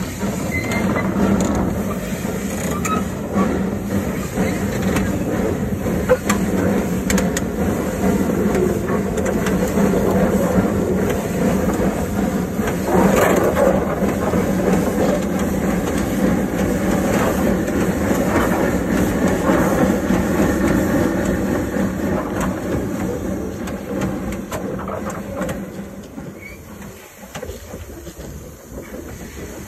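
1935 Henschel coal-fired narrow-gauge tank engine running along the track, steam hissing from around its cylinders. The sound fades down near the end.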